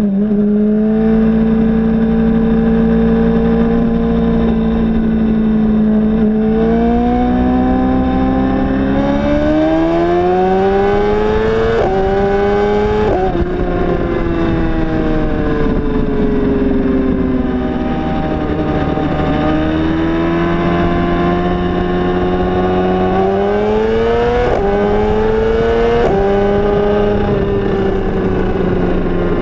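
Onboard sound of a BMW S1000RR's inline-four engine at highway speed: it holds steady for several seconds, then revs climb hard with two quick upshifts about two thirds of the way into the climb, roll off, and climb again with two more upshifts before easing off. Wind rush runs underneath.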